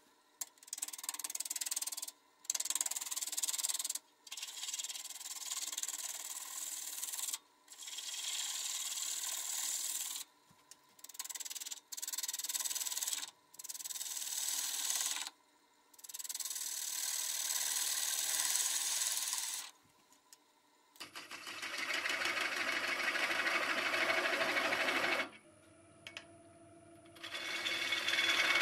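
A gouge cutting stone pine spinning on a wood lathe: stretches of hissing, scraping cutting noise broken by several short breaks, over a faint steady whine from the lathe. About two-thirds of the way through the cutting becomes fuller and louder, then drops to a short lull before resuming near the end.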